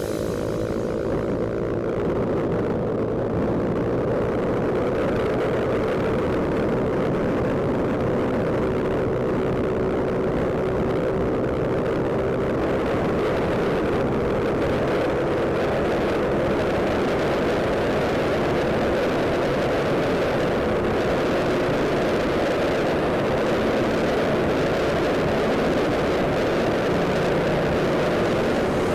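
Motor scooter engine running steadily while riding, its note slowly easing lower, under a constant rush of wind noise on the camera microphone.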